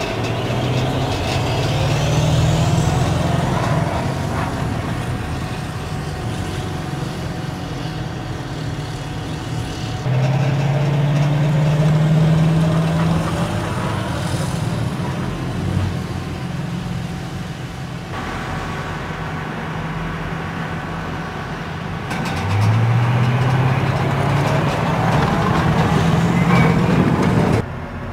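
Diesel engines of AAV7 amphibious assault vehicles running and pulling away, the engine note climbing several times. The sound changes abruptly at a few points.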